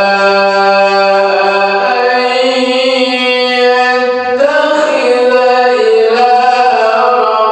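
A male qari recites the Quran in the melodious tilawah style, holding long ornamented notes. The pitch steps up about two seconds in and shifts again just past the middle.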